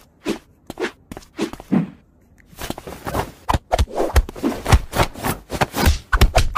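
A hand patting and slapping at a cat's body and paws, soft thuds spaced out at first, then a quick flurry of pats from about two seconds in.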